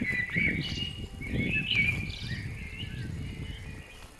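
Small birds chirping and twittering in short gliding notes, over the low uneven thuds of hikers' boots and poles on a stony trail.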